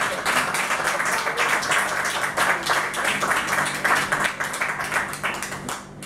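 Audience applauding, the clapping dying away near the end.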